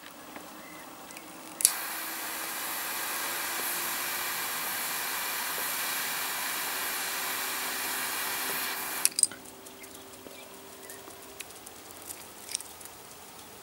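A steady hiss that starts suddenly with a click a little under two seconds in and cuts off with a couple of clicks about nine seconds in. A few faint ticks follow.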